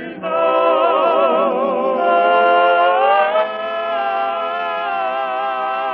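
Voices singing the end of a gospel hymn's refrain. The final word "know" is drawn out into long held notes with vibrato.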